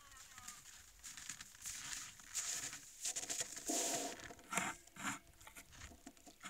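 A moose right at the trail camera: rustling and scraping noises close to the microphone, coming in a run of short bursts that are loudest about halfway through.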